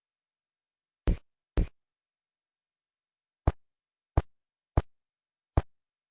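Six short, sharp clicks or taps with silence between them: two close together about a second in, then four more, evenly spaced about two-thirds of a second apart, from about three and a half seconds in.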